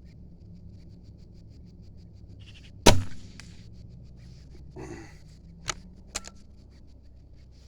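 Weihrauch HW50S .177 spring-piston air rifle firing once about three seconds in, a sharp crack with a short ringing tail. A couple of seconds later come a brief rustle and two sharp clicks.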